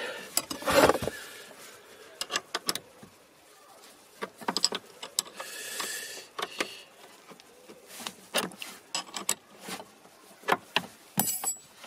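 Sharp metal clicks and clinks of a hand tool working the car battery's terminal clamp loose to disconnect the battery, coming in short scattered clusters.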